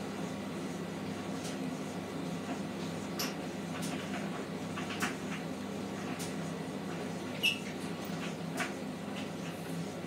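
Hotpoint front-loading washing machine in its wash cycle: a towel tumbling in the drum through soapy water over a steady low motor hum. Scattered light clicks and splashes, with one sharper click about two-thirds of the way through.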